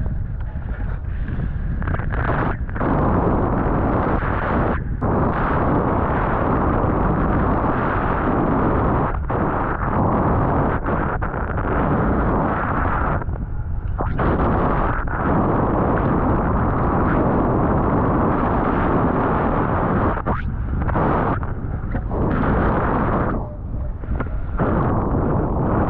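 Strong wind buffeting the microphone: a loud, low rush of noise that dips out briefly several times.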